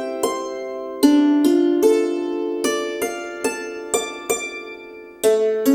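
Hammered dulcimer played with hammers in ringing arpeggios, the notes overlapping as they sustain, with heavier multi-note strikes about a second in and near the end. The arpeggios are being played to check the fresh tuning, which sounds in tune.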